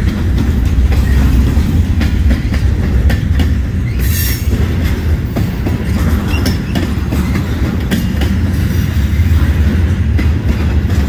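Freight cars of a passing train rolling by close at hand, a steady deep rumble of steel wheels on rail with repeated clicks over the rail joints. About four seconds in there is a brief high screech, typical of a wheel flange squealing against the rail.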